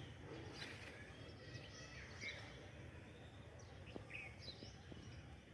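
Birds chirping faintly in a garden: scattered short, high calls over a steady low background noise.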